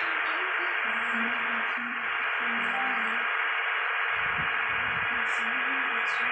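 Steady rushing road and wind noise of a moving vehicle on the highway, with faint music playing underneath.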